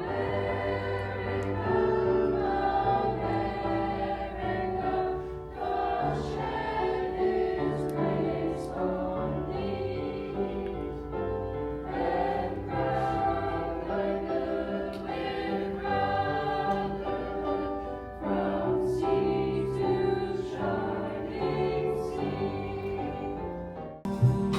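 High school chamber choir singing sustained chords, the words' "s" sounds standing out as short hisses.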